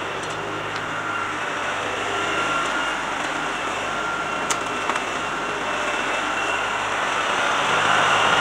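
LS compact tractor's diesel engine running steadily as the tractor drives with a loaded grapple, growing louder as it comes closer near the end.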